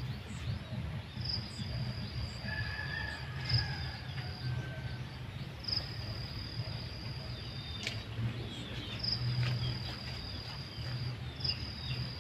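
An insect singing long, steady, high-pitched trills that each last one to three seconds, with short breaks between them, over a low steady hum.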